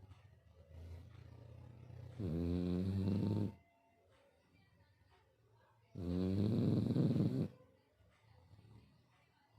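Five-month-old puppy snoring in its sleep: two long, loud snores about three and a half seconds apart, with quieter breathing between them.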